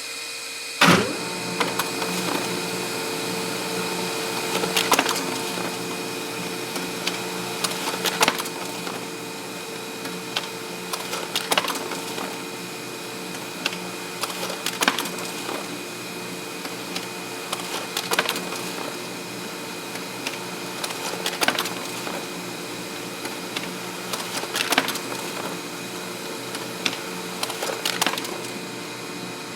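Samsung SCX-4300 laser multifunction printer running, a steady motor hum and whine with a sharp clack about a second in and then a click roughly every three seconds.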